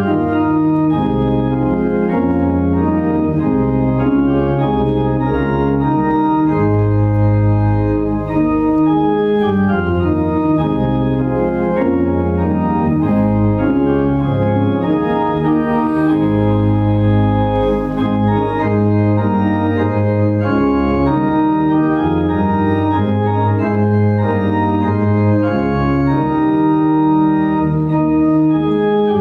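Organ music: sustained chords that change every second or so over low bass notes.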